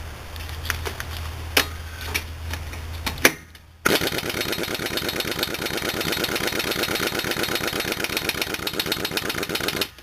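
Air impact wrench hammering on a truck's wheel lug nut in a fast, even rattle for about six seconds, starting about four seconds in, after a few knocks as the socket goes on. The air compressor has not come on, so the wrench is running short of air.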